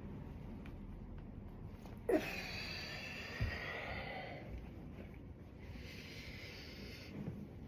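A person breathing hard with exertion during one-legged pistol squats: long, hissy exhales a few seconds apart, the first opening with a short falling grunt about two seconds in.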